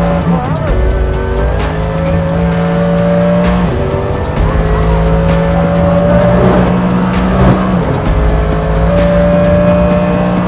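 Mercedes-AMG GT3 race car's V8 engine under hard acceleration, its pitch climbing steadily and then dropping sharply at each upshift, twice.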